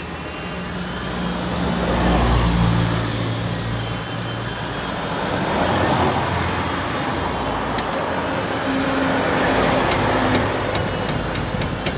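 Road traffic passing close by: the engines and tyres of passing vehicles rise and fall, swelling about two seconds in and again around six seconds. A few faint clicks come near the end.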